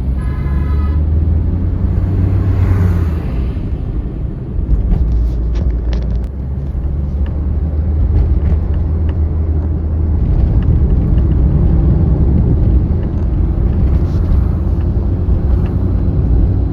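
A motor vehicle running: a steady low engine and road rumble, with a brief steady tone in the first second and scattered small knocks.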